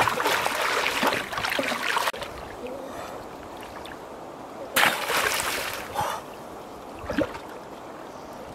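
Water splashing as a person wades and works by hand in a shallow river: a loud stretch of splashing that cuts off abruptly about two seconds in, then a second short burst of splashing about halfway through.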